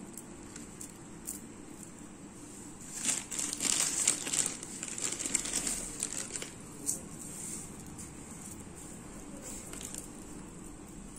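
Clear plastic packaging crinkling as it is handled, a dense crackle for about three and a half seconds in the middle, followed by a single click.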